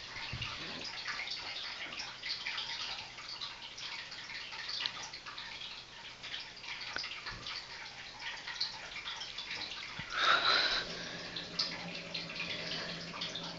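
Faint wet dripping and trickling with light rubbing on wet skin close to the microphone, and a brief louder rustle about ten seconds in.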